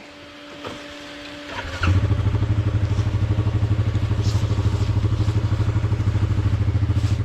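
A quad's single-cylinder engine is started and catches about two seconds in, then idles with a steady, fast, low thumping.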